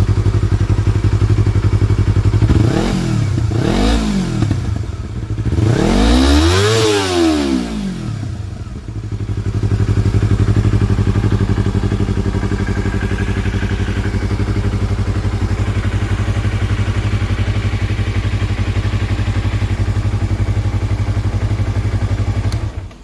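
Yamaha R25's parallel-twin engine idling through an Akrapovic slip-on exhaust. The throttle is blipped twice quickly about three seconds in, then revved higher and held briefly before it drops back to a steady idle.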